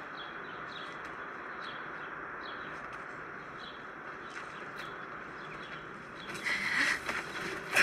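Birds chirping here and there over a steady outdoor hiss of park ambience. About six seconds in, a louder hiss-like noise rises.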